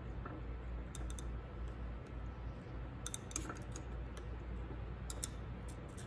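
Glass stirring rod clicking lightly against a glass beaker while stirring a hot baking-soda solution holding aluminium foil and a silver necklace. A few scattered clicks over a steady low hum.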